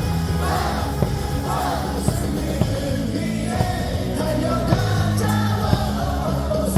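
Stadium crowd singing a baseball cheer song along with loud amplified music, with a steady beat about once a second.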